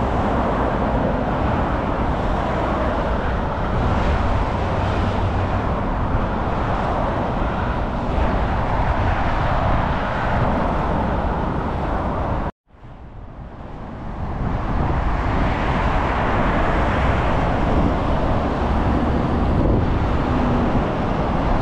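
Steady noise of multi-lane motorway traffic, cars and vans passing below at speed. A little past halfway it cuts out suddenly, then fades back up over a couple of seconds.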